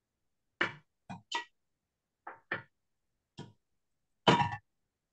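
A run of short clinks and knocks of cookware and utensils, about seven separate hits, the loudest and longest near the end. Each one cuts off abruptly into silence, as a video call's noise suppression gates it.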